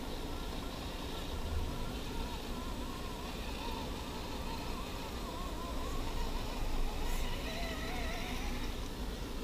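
Electric motor and gears of an RC scale crawler whining as it drives through shallow mud and water, the pitch wavering up and down with the throttle, over a steady outdoor hiss.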